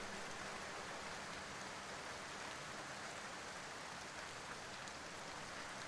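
Steady rain, an even hiss of falling rain with no change in level.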